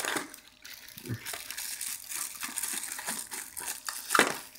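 Plastic bag crinkling and rustling as a bagged power adapter is worked out of a small cardboard box, with a louder crackle near the end.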